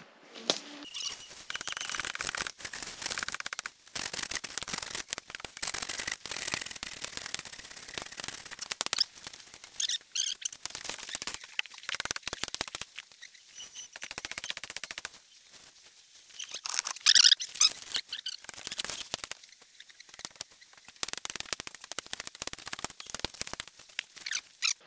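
Brush being cleared: dense, irregular crackling and snapping of branches and twigs as they are cut, with one louder burst past the middle.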